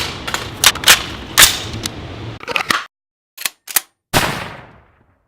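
AR-15 gunfire: a fast string of shots for about three seconds, then a short pause, two quick cracks and one last loud shot that echoes away over about a second.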